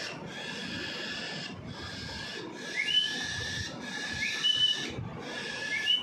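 Young cockatiel chick begging for food: a run of raspy, hissing calls about a second long each, with short gaps between them, several ending in a short rising squeak.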